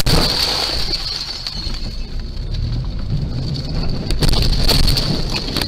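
A car colliding with a tram, picked up by a dashcam's microphone: a sharp bang, then loud rattling noise under a steady high-pitched tone, with more knocks about four seconds in.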